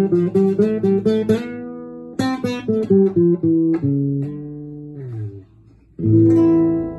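Nylon-string classical guitar played fingerstyle: quick runs of plucked notes, then held notes that slide down in pitch. After a brief drop almost to silence, a final chord is struck about six seconds in and left ringing.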